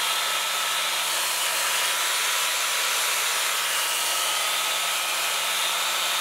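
Corded angle grinder fitted with a wire wheel, running steadily with a faint whine as it scrubs surface rust off a steel wheel hub.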